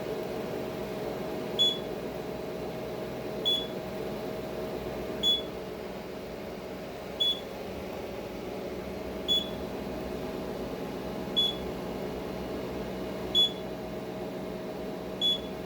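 Syneron aesthetic system with its SR handpiece, giving eight short high beeps at a steady pace of about one every two seconds over a steady machine hum.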